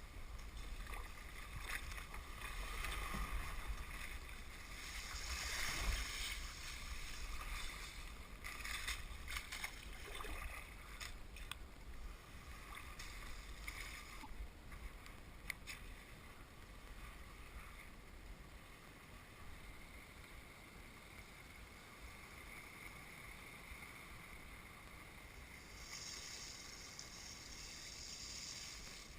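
Kayak moving through thin lake ice: bright crackling and tinkling as the ice breaks and slides along the hull. Scattered sharp clicks come around ten seconds in, with a quieter stretch after the middle.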